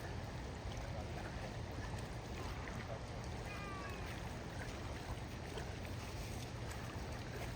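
Steady rushing noise of moving water, with a low hum underneath. A few short high calls fall in pitch about three and a half seconds in.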